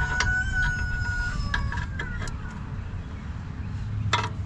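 A rooster crowing once, a long held call that drops in pitch at its end, over a steady low rumble. A sharp knock sounds near the end.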